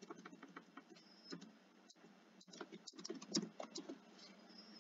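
Typing on a computer keyboard: a faint, irregular run of key clicks.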